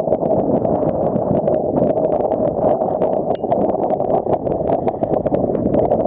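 Strong wind buffeting the microphone over choppy sea, with water slapping and splashing close by in many small crackles.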